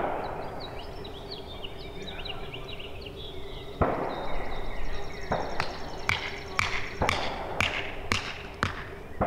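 Hammer blows on a stake or post: a heavy thud at the start and another a few seconds later, then a run of sharp strikes, about two a second.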